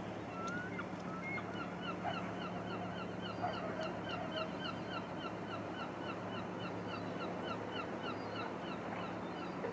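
A bird calling in a fast, steady series of short, slightly falling chirps, about four a second, over a low steady hum.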